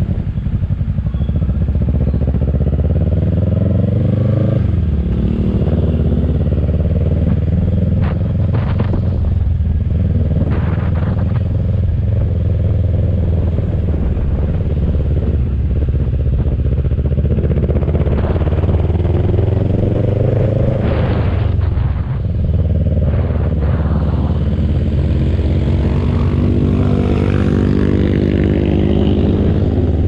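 Motorcycle engine running under way, a steady low drone whose pitch climbs several times as it is throttled up, with a few brief bursts of noise near the first third.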